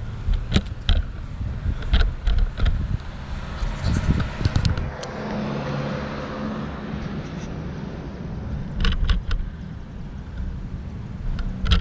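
A car or truck drives past on the road. Its engine and tyre noise swells in the middle and then fades, over a low rumble with scattered sharp knocks.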